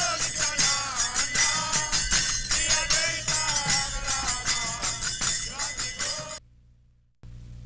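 Group kirtan: many voices chanting together over dense, steady clashing of small hand cymbals and a drum. It cuts off abruptly about six seconds in; after a brief silence a steady low hum and hiss come in.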